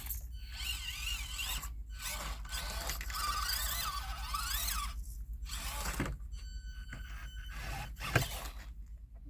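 Micro RC crawler (Axial SCX24 Deadbolt) running on a course: its small electric motor and gears whine, rising and falling in pitch as the throttle changes. A sharp knock comes near the end.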